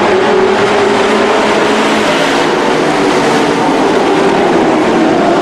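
Engines of compact pickup race trucks running at speed on a dirt oval as a truck passes close by: a loud, steady engine drone.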